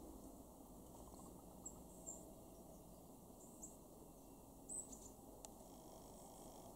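Faint, very high-pitched short calls of a blue tit, a handful of scattered chirps with the clearest about two-thirds of the way in, over a low steady background hiss. One faint click follows shortly after.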